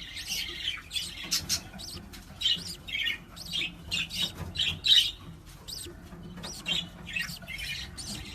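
A pet parrot giving a string of short chirps and squawks, about two a second.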